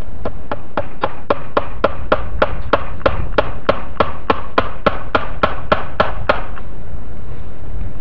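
A run of about two dozen quick, evenly spaced taps, close to four a second, growing stronger and then fading out after about six seconds. Wind rumbles on the microphone throughout.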